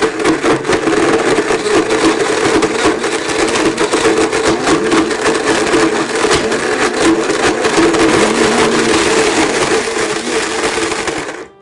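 Blendtec Total Blender running at full speed, grinding a rubber wheelbarrow inner tube, with a steady motor hum and a continuous irregular clatter of chunks hitting the jar. The motor cuts off abruptly near the end.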